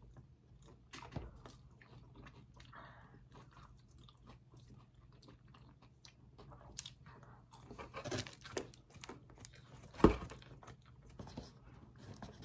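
Crunching and chewing of crispy fried chicken tenders, with many small crackles of the breading. About ten seconds in there is one sharp knock, the loudest sound.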